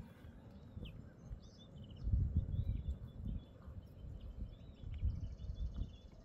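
Outdoor wind ambience: low gusts buffeting the microphone in surges, with faint high bird chirps and a short buzzy trill about five seconds in.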